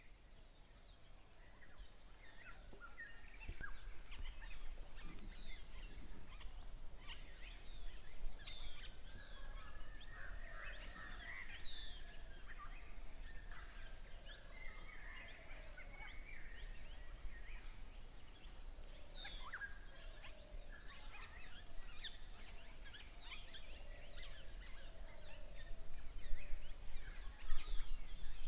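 A dense chorus of many overlapping animal calls: short high squeaks, chirps and chattering. It builds up over the first few seconds and grows loudest near the end.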